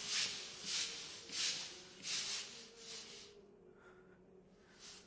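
Hand scrubbing brushes rubbed back and forth on a wet stone floor, about one stroke every two-thirds of a second, fading out about three seconds in.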